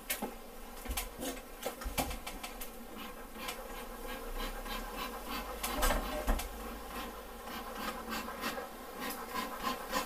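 A honeybee colony buzzing in a steady hum inside a ceiling cavity that has just been opened. Scattered crackles and rustles run through it.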